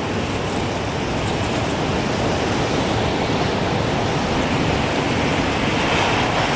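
Steady rushing wind noise, growing a little louder toward the end, with no clear chime strikes.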